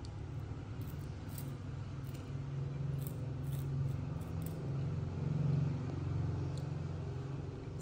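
A baby macaque chewing and picking through puffed corn snacks: a run of short, crisp crunches and clicks, most between about one and four and a half seconds in, over a steady low hum.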